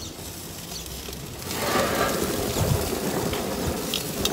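Metal grill tongs clicking and scraping on the grill grate as hot dogs are turned. About a second and a half in, wind starts buffeting the microphone with a louder rushing and rumbling.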